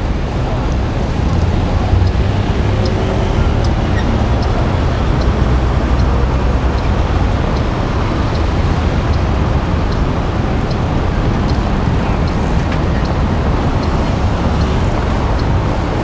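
Steady city street traffic noise, a low rumble of passing cars, with a faint regular ticking in the background.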